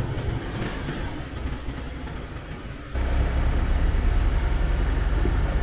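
Jeep Wrangler Rubicon driving slowly off-road on a dirt track: engine running and tyres rolling. About three seconds in the sound changes abruptly to a louder, deep rumble.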